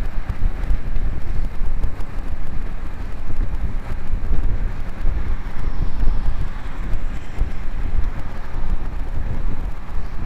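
Wind buffeting the microphone of a camera on a road bicycle riding at speed, a loud, rumbling rush that rises and falls unevenly.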